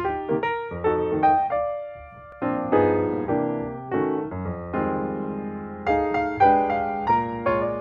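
Background music played on a piano-like keyboard: chords and a melody of struck notes that fade after each strike, with a brief softer passage about two seconds in.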